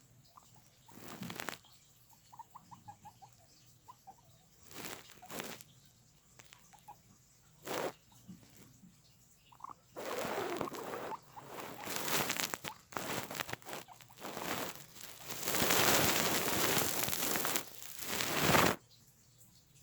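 Guinea pigs making a few faint, quick squeaks, among bursts of rustling that grow louder and longer in the second half.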